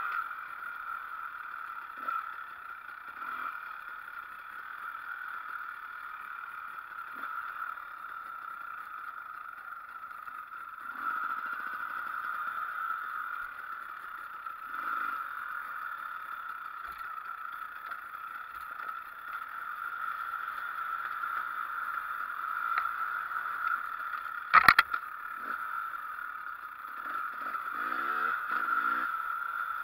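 Enduro motorcycle engine running as the bike is ridden along a dirt trail, its revs rising and falling in the last few seconds. One sharp knock comes a little before the end.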